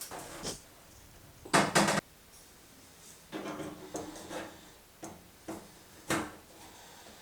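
Irregular knocks, clunks and scrapes of hardware being handled during a microwave oven installation, with two loud knocks close together about a second and a half in.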